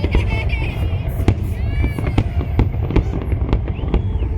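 Fireworks display going off in quick succession: a rapid string of sharp bangs and crackles over a constant low rumble.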